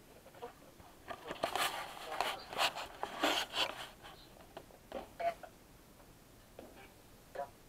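Rustling and light knocks from the camera being handled and moved, thickest from about one to four seconds in, with a few single clicks after.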